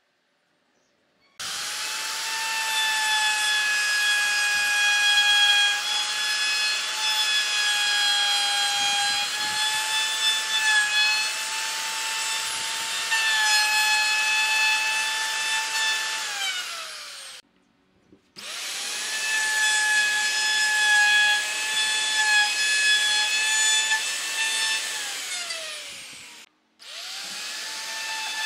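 A DCA electric plunge router running at full speed and cutting into a wooden frame: a loud, high steady whine that dips slightly in pitch as the bit bites. About halfway through it slides down in pitch and breaks off. After a short gap it runs again, with another brief break near the end.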